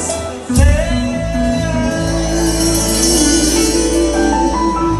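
Live music: a singer with instrumental accompaniment, holding long notes over a steady low bass.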